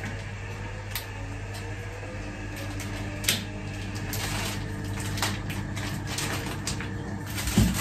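Light clicks and small knocks of kitchenware being handled at a kitchen sink, a few sharp ones spread through, over a low steady hum.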